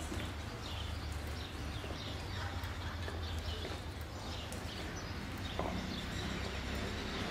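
Outdoor background with a steady low rumble, broken by scattered small clicks and brief high chirps.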